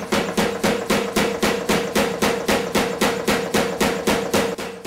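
Power hammer pounding a red-hot steel bar in rapid, even blows, about five a second, over a steady machine hum. The hammer is mashing (necking down) the bar's middle.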